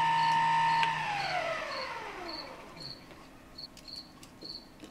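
Mini lathe's motor and drive running with a steady whine, then switched off about a second in and spinning down, the whine falling in pitch over about two seconds until the chuck stops.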